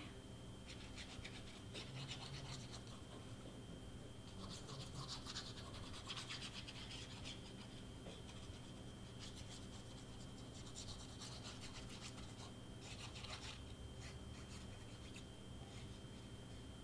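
Faint scratching and rubbing of cardstock paper pieces being handled and pressed down, coming in scattered bursts.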